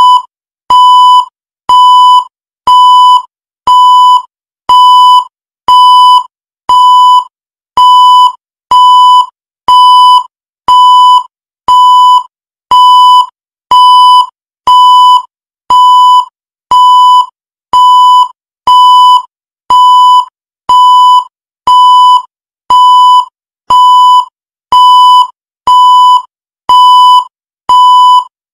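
Electronic countdown-timer beep: a short, steady-pitched beep sounding once every second, marking each second as the timer counts down.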